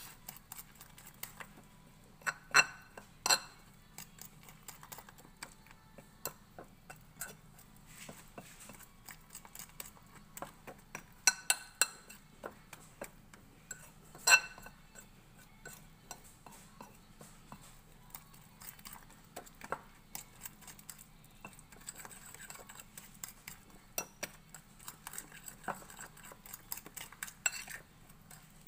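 Wire whisk beating batter in a plastic mixing bowl: a continual run of quick light clicks and scrapes, broken by a few sharp, ringing metallic clinks, the loudest about three, twelve and fourteen seconds in. A low steady hum runs underneath.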